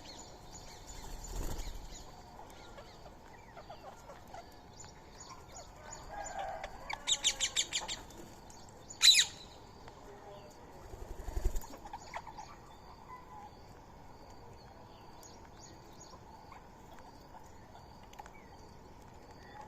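Wild birds: wings flutter in short bursts a few times, a loud sharp call comes once about nine seconds in, and a small bird chirps over and over faintly.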